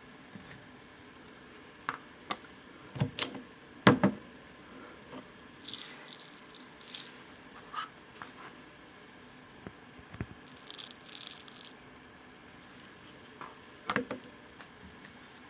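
Objects being handled and set down on a table: scattered knocks and clicks, the loudest two about three and four seconds in, with short bursts of light rattling. No grinder motor is running.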